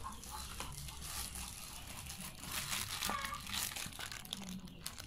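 Plastic packaging crinkling and rustling in irregular bursts as it is handled and pulled.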